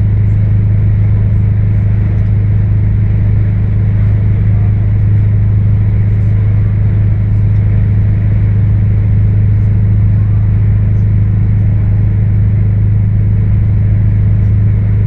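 Scania 164L 580's 16-litre V8 diesel running loud and steady at constant engine speed, a deep even drone with no revving.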